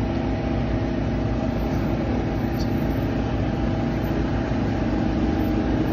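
A food truck's onboard machinery running with a steady, low hum and a few constant tones over it.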